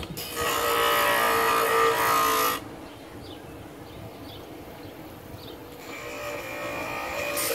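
Bench grinder shaping a piece of oak: a loud grinding pass of about two seconds as the wood is pressed to the spinning wheel, then the grinder runs on more quietly, and a second, lighter pass starts near the end.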